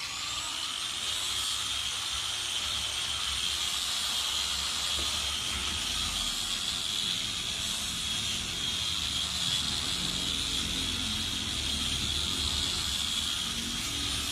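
Electric angle grinder fitted with a diamond polishing pad, wet-polishing the bullnose edge of a granite slab: a high, steady motor whine that rises to speed at the start and then holds.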